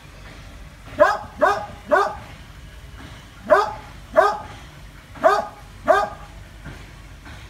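Dog barking at a monitor lizard: seven sharp barks in three bursts, three quick ones about a second in, then two, then two more.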